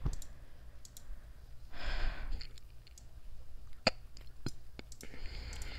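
Computer mouse clicks: a few scattered single clicks, with a breathy exhale about two seconds in and a fainter one near the end.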